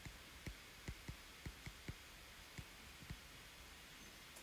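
Faint, irregular clicks and taps of a stylus on a tablet screen during handwriting, about ten of them in the first three seconds, over near silence.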